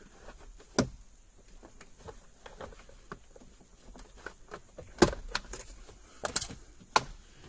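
Plastic retaining clips of a car's lower dash panel snapping loose as the panel is pried off with a plastic trim tool. Sharp snaps come about a second in, at about five seconds, twice more a second later, and near the end, between small taps and rattles of the panel being handled.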